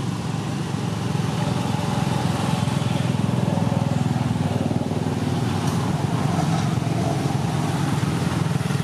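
A small engine running steadily, a little louder from about two seconds in.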